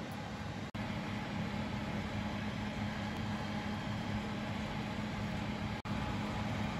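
An oven running while a cake bakes inside: a steady hum with a hiss over it, cut off for an instant twice.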